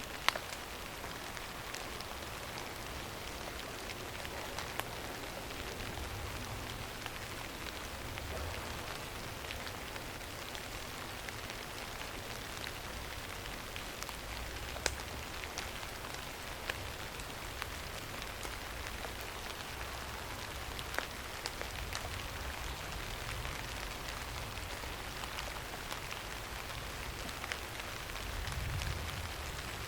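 Steady rain falling, an even hiss with scattered sharp drop ticks. A soft low rumble swells briefly near the end.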